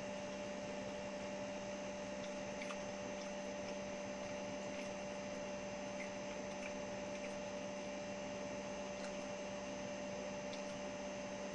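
Steady electrical hum, a low tone with a higher one above it, over a faint hiss, unchanging throughout.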